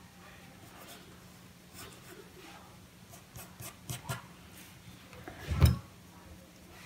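Graphite pencil sketching on paper: faint, irregular scratching strokes. A single thump about five and a half seconds in.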